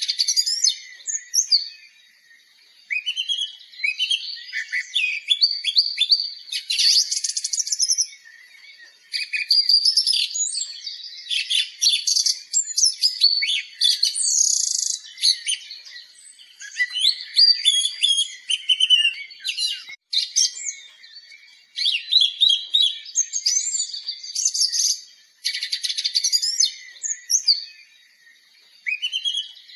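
Songbirds singing: a dense, varied run of chirps, trills and short whistled phrases, broken by brief lulls every few seconds.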